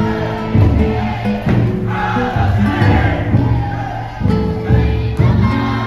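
Music with several voices singing over sustained instrument notes that change pitch in steps.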